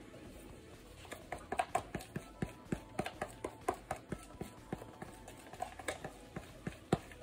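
Irregular light clicks and taps, about three or four a second, starting about a second in.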